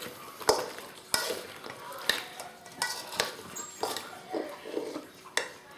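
A utensil stirring and tossing fried chicken wings in a container of sauce, with irregular clinks and scrapes against the container about once a second.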